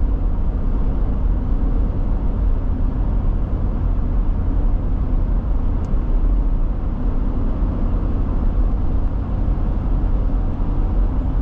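Steady road and engine noise of a car driving at a constant pace, strongest in the deep bass.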